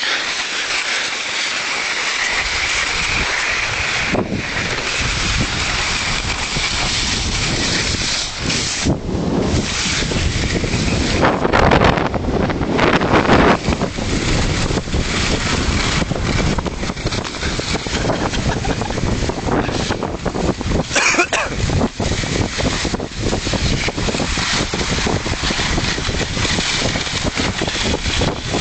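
Wind buffeting the microphone as a skier moves downhill, mixed with the hiss and scrape of skis sliding over snow.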